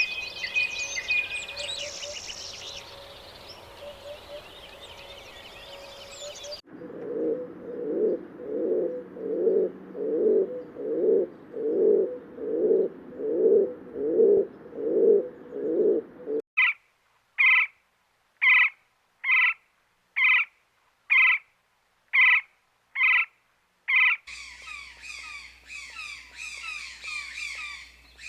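A run of separate animal-call recordings cut together, mostly birds. It opens with high chirping. About six seconds in, a low call repeats about twice a second for ten seconds. Then comes a short, sharp call about once a second with silence between, and near the end a busy high chirping.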